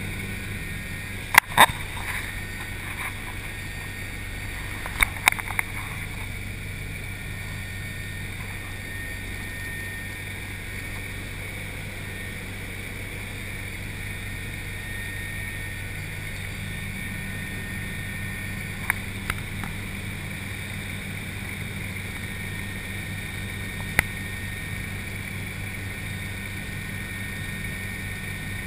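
Helicopter cabin noise: the steady drone of the engine and rotor with a low hum, heard from inside the cabin. Sharp clicks cut through it, the loudest in the first two seconds, a few more around five seconds in, and a couple more later on.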